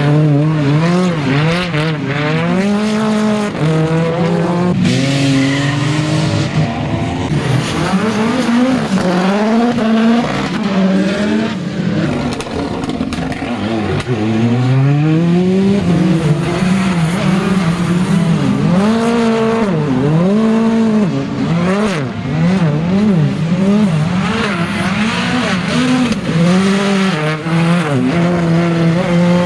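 Rally cars' engines driven hard, the pitch rising and falling again and again as they rev through gear changes, with some tyre squeal on the wet tarmac.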